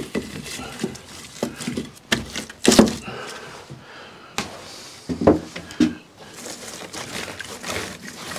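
Irregular wooden knocks and clunks of split firewood being handled, the loudest about three seconds and five seconds in, in a small, enclosed room.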